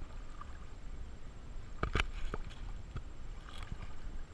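Low rumble of handling noise on a GoPro's waterproof housing held at the water's surface, with a few soft clicks and knocks, the clearest about two seconds in.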